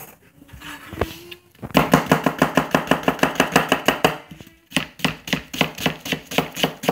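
Chef's knife chopping an onion on a plastic cutting board: a fast, even run of blade strikes against the board starting under two seconds in, a brief pause about four seconds in, then a second fast run.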